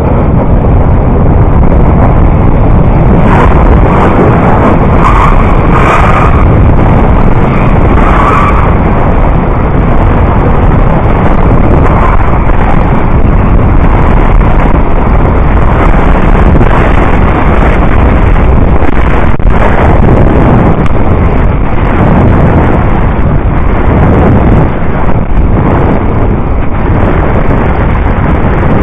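Bobsleigh runners rumbling and scraping over the ice of a bobsleigh track at speed, a loud, steady rush with a few sharper scrapes a few seconds in.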